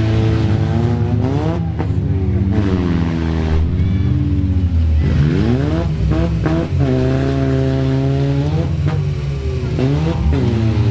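Demolition derby car's engine revving hard over and over, its pitch climbing and dropping several times, over the steady low running of other engines.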